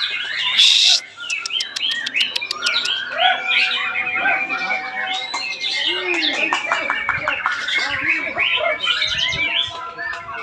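Several white-rumped shamas (murai batu) singing at once in competition, a dense overlap of whistled phrases, fast trills and rattling runs, with a short harsh burst about a second in.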